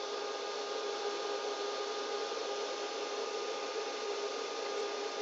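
Old bench power supply running steadily: an even noise with a constant hum tone and its overtones, described as loud.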